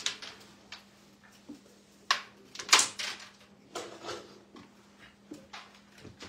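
Carrom break shot: the striker cracks into the packed centre coins, with sharp wooden clacks a little over two seconds in and the loudest just under three seconds in. Coins and striker then clatter against each other and the board's wooden frame, fading to a few light ticks.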